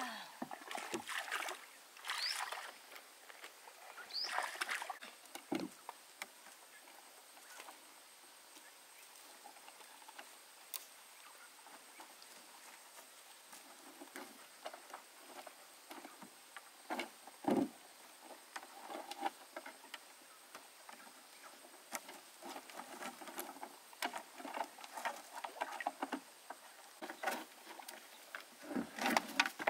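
Water splashing and light knocks around a small boat on the water: a few louder splashes in the first few seconds, then faint lapping with scattered knocks.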